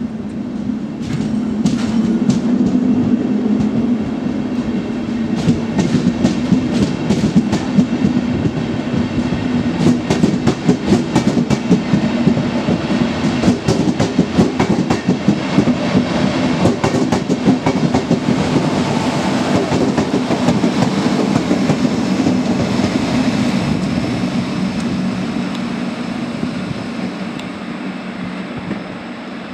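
Regional push-pull train of Silberling (n-Wagen) coaches, pushed by a DB class 112 electric locomotive, passing close by: the wheels clatter sharply and irregularly over rail joints and points, over a steady low hum. The sound swells as the coaches go by and fades as the train pulls away near the end.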